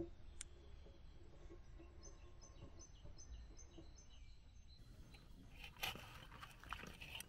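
Faint birds chirping over quiet outdoor air. From about five and a half seconds in, a metal spoon and fork clink and scrape a few times against a large black pan while lifting pieces of fried chicken.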